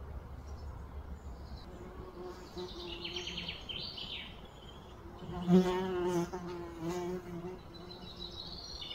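A flying insect buzzing close by. Its drone wavers in pitch, swells to its loudest about five and a half seconds in, then fades. Birds chirp in the background.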